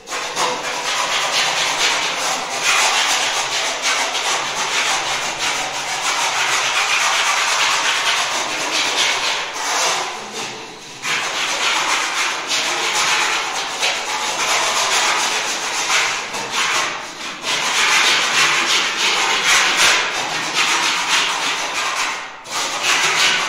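A plastered wall being scraped down by hand: a steady, continuous scraping, dropping away briefly about eleven seconds in and again near the end.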